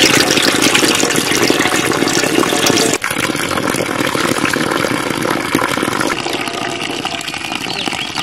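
Water pouring and splashing steadily as rice is rinsed: rinse water tipped off a basin of rice, then, after a sudden break about three seconds in, a hose-pipe stream running onto the ground and into a metal pot.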